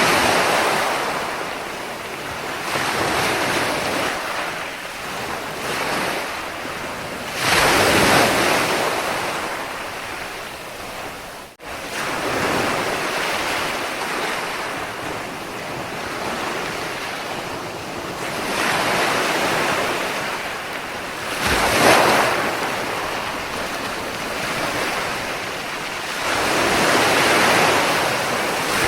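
Ocean waves breaking and washing over a shore, as a steady rushing that swells into louder surges every several seconds, strongest about a third of the way in and again about three quarters in. The sound cuts out for an instant a little before halfway.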